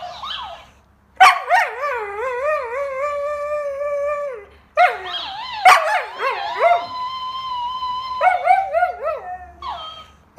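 Siberian husky howling and 'talking' in long, warbling yodels that waver up and down in pitch. It comes in two stretches: the first starts about a second in, and the second, higher one starts around the middle and is partly held on a steady note before breaking back into warbles.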